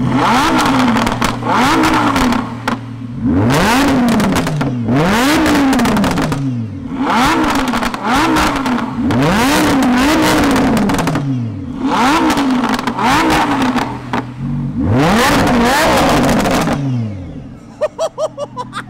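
Lamborghini Huracan V10 engine revved repeatedly from idle, each rev rising and falling in pitch in about a second, loud throughout. The revving stops near the end.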